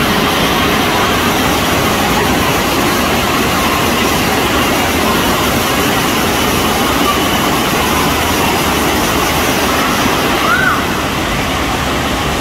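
FlowRider surf simulator's pumped sheet of water rushing steadily and loudly over its padded ride surface, a constant even rush of water.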